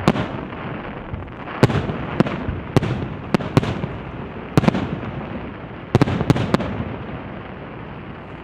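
Fireworks display: about ten sharp bangs of shells bursting in an irregular run, some in quick pairs, over a continuous rumble and crackle that dies away near the end.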